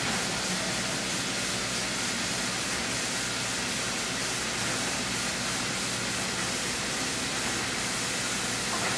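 Steady, even hiss with a faint low hum under it, from the stovetop where a skillet of pasta and sauce is cooking.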